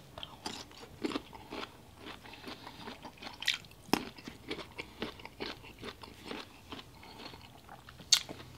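A person chewing and crunching a boiled bamboo shoot close to the microphone, ASMR-style: irregular crunches and mouth clicks, with one louder sharp crunch near the end.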